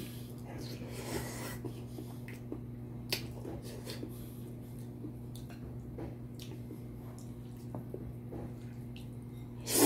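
Close-up eating sounds: a man chewing noodles and beef, with small clicks and ticks of wooden chopsticks against the bowl and a short slurp-like swish about a second in. A steady low hum runs underneath.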